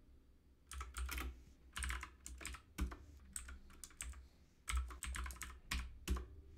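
Computer keyboard typing: short runs of keystrokes separated by pauses, as terminal commands are typed and entered.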